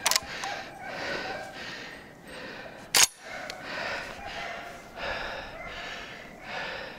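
Footsteps crunching through snow at a walking pace, with two sharp clicks, one just after the start and one about three seconds in.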